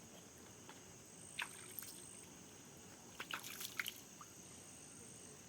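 A few faint small water splashes and drips, short and scattered, one about a second and a half in and a quick cluster a little past the middle, over a steady low hiss.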